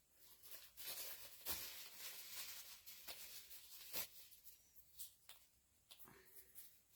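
Faint rustling and a few light clicks of craft materials being handled: a coco-fibre nest and moss.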